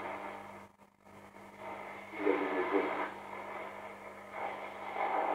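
Hammarlund HQ-100 shortwave receiver's loudspeaker playing a station as it is tuned across the band: a narrow, muffled broadcast voice fades out about a second in and another signal comes back, over a steady low hum. It is the restored receiver pulling in signals during its test.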